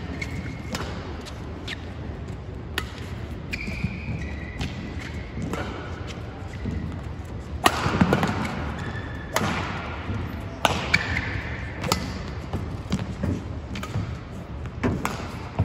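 Badminton rally: a series of sharp racket strikes on the shuttlecock, about a dozen, the loudest about eight seconds in, with short shoe squeaks on the court mat and thudding footsteps between them.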